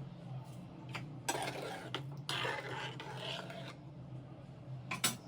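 A spoon stirring and scraping through thick brinjal curry in a pan, in two rasping stretches, with a light knock of the spoon on the pan near the start and near the end. A low steady hum runs underneath.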